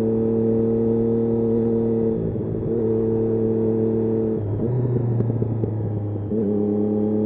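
Triumph Daytona 675's three-cylinder engine running at steady revs under the rider. About four seconds in, the note drops and turns rough and uneven for about two seconds, then steps back up to a steady pitch.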